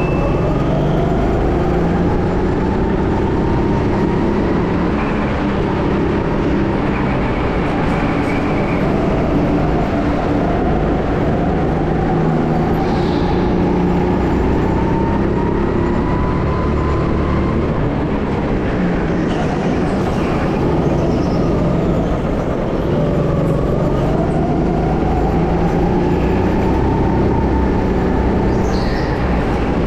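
Go-kart engine running under throttle, its pitch rising and falling over a few seconds at a time as the kart speeds up and slows down, over a steady rush of wind and track noise.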